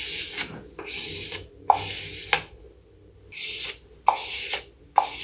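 A rhythmic run of short raspy scraping strokes, several starting with a sharp click, with a pause of about a second near the middle.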